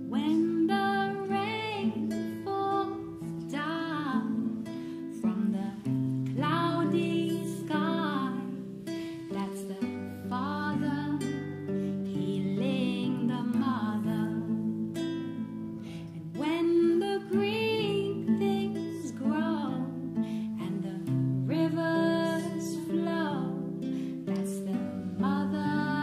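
Devotional song: acoustic guitar under a singing voice whose notes glide and waver in pitch.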